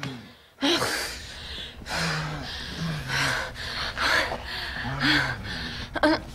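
A couple breathing hard and gasping, about one breath a second, with a few short low moans in between.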